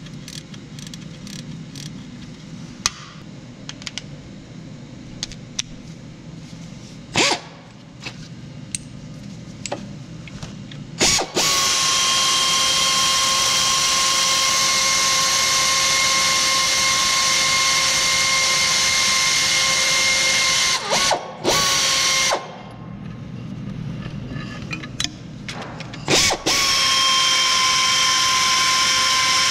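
Scattered clicks and clinks of tools on the engine. Then, about a third of the way in, a power ratchet runs on a bolt near the alternator with a steady whine for about ten seconds. It stops and starts briefly and runs steadily again for the last few seconds.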